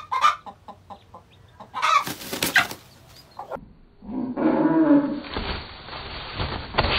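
A hen clucking in a quick run of short clucks, then a loud, harsh squawk. After a cut about four seconds in, lower-quality, muffled sound with another pitched call and some thumps.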